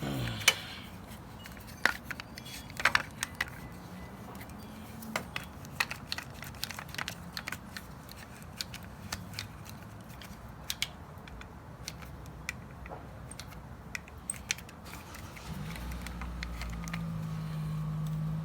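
Scattered metallic clicks and clinks of a clamp being handled and worked on an ATV front brake caliper to squeeze the pistons back in. A low steady hum comes up in the last few seconds.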